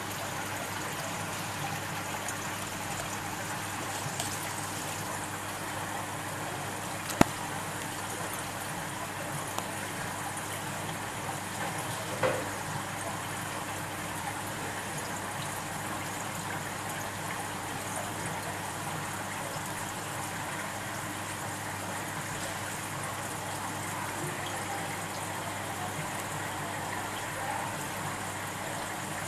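Steady trickling water of a running aquarium, with a low steady hum beneath. A sharp click comes about seven seconds in and a short knock about twelve seconds in.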